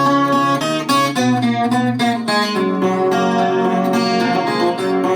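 Chilean guitarrón, a 25-string folk guitar, strummed and plucked in a steady instrumental passage of a traditional canto a lo poeta melody.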